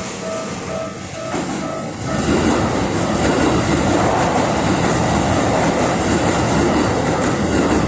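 A level-crossing warning bell rings in quick, even pulses. About two seconds in it is drowned out as a Keikyu electric train passes close by, its running noise loud and steady.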